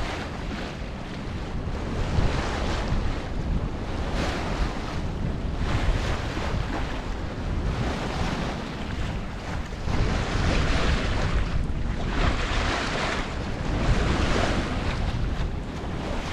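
Wind buffeting the microphone and water rushing along the bow of a sailboat under sail, the rush of water swelling in surges every second or two.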